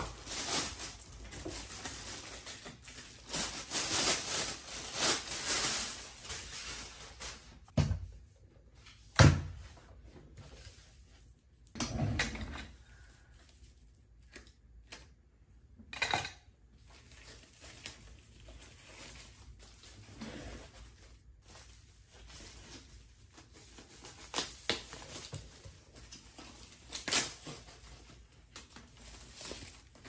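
Plastic packaging bags rustling and crinkling as monitor stand parts are pulled out of them. Several sharp knocks and clunks follow as the metal stand pieces are handled and set down on a wooden desk.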